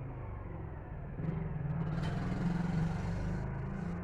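Low rumble of a motor vehicle that grows louder about a second in, with a hiss for about a second and a half in the middle.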